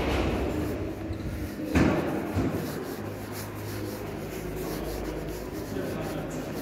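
Two loud thumps a little under two seconds apart, then a steady low hum.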